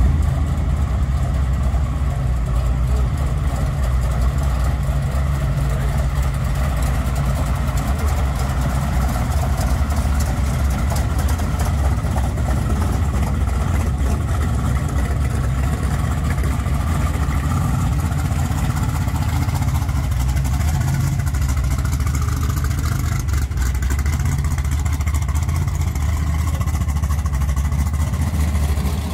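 Supercharged V8 engines of pro street muscle cars, among them a blown Chevy II Nova, rumbling steadily at low speed as they roll past. The sound is a deep, steady rumble with no sharp revs.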